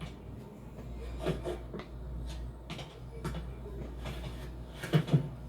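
A string of soft knocks and thuds at irregular intervals, film foley of objects being handled and bumped, over a steady low hum; the loudest pair of thuds comes near the end.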